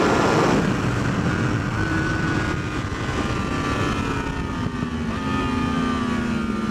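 Yamaha R1's crossplane inline-four engine on a closed throttle, its pitch falling steadily as the bike slows for a corner, with a downshift from third to second. Heavy wind rush on the helmet is loudest in the first half second, then eases.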